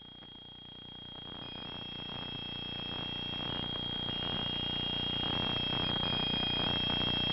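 Electronic glitch-and-static sound effect: a noisy crackling hash under a steady high-pitched tone, with other tones stepping in and out. It grows steadily louder and cuts off suddenly near the end.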